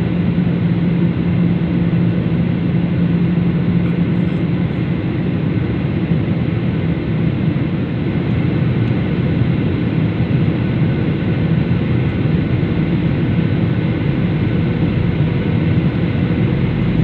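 Steady cabin noise of a Boeing 737 airliner in flight, heard from a window seat: the jet engines and the rush of air over the fuselage, with a low hum that eases off about two seconds in.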